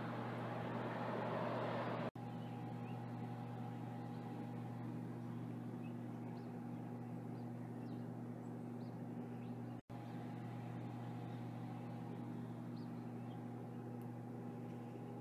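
A steady low mechanical hum like an idling engine, with a louder rush of noise over it for the first two seconds that stops suddenly. A few faint high chirps sound over the hum.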